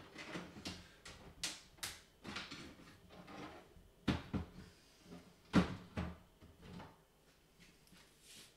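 Light clicks and knocks of a Thomson TO9 computer's plastic case being opened: its single screw taken out and the top cover lifted off. The loudest knock comes about five and a half seconds in.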